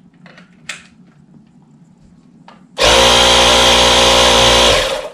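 12-volt portable tire inflator running for about two seconds: its compressor motor starts abruptly almost three seconds in with a steady whine and stops shortly before the end. It is powered from an 80-volt tool battery through a 12-volt converter. Light handling clicks come before it.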